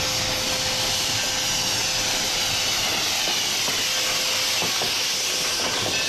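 Durango & Silverton K-28 steam locomotive No. 480 rolling slowly past at close range with a steady hiss of steam. A few faint knocks sound near the middle.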